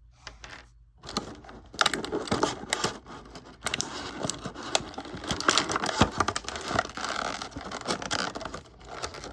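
Stiff plastic packaging crinkling and rustling, with many sharp clicks and scrapes, as an action figure's small accessory parts are handled. It starts about a second in.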